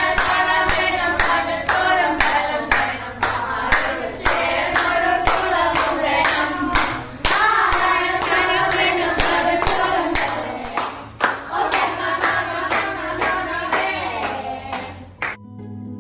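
A group of children singing a song together while clapping a steady beat, about two claps a second. The singing and clapping stop suddenly near the end.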